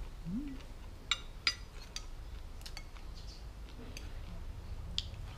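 A handful of scattered light clinks of chopsticks and a metal spoon against the plate and soup bowl while eating, the sharpest about a second in. A low steady hum underlies it.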